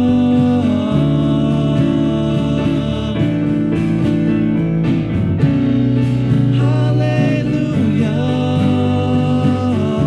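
Church praise team singing with instrumental accompaniment: voices holding long, drawn-out notes, sliding between pitches a couple of times, over a steady low accompaniment.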